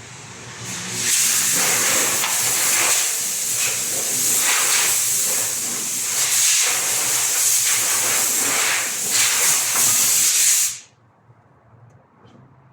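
Loud steady hiss of a pressurised jet, starting about half a second in and cutting off suddenly after about ten seconds.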